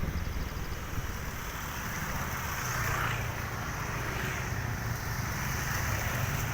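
Wind buffeting the microphone over a steady low rumble of road traffic, swelling briefly a couple of times as vehicles go by.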